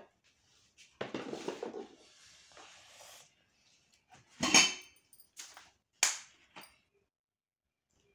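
Kitchen utensils and spice containers being handled at a plastic mixing bowl: about a second of rustling or scraping, then a few sharp knocks and clinks, the loudest about four and a half seconds in.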